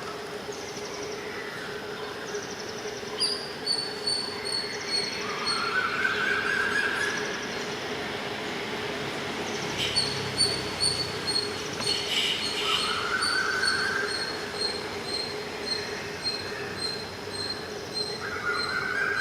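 EMD WDP4D diesel locomotive, a 16-cylinder two-stroke, running at slow speed with a steady hum.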